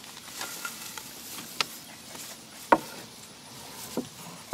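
Giant Schnauzer puppies moving about on a porch: scattered light taps and knocks, with one sharp, louder knock a little past halfway.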